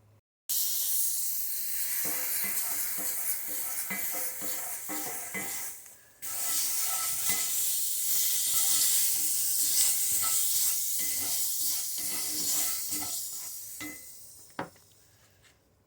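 Butter sizzling in a frying pan as bread and egg fry. It starts suddenly about half a second in, cuts out briefly around six seconds, comes back, and fades away near the end with a few light taps.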